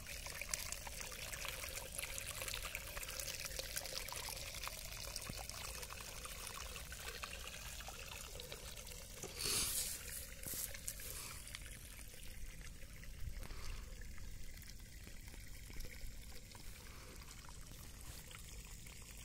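Borewell water pouring out of a pipe outlet and splashing over rocks and the ground in a steady rush. The water is briefly louder about nine and a half seconds in.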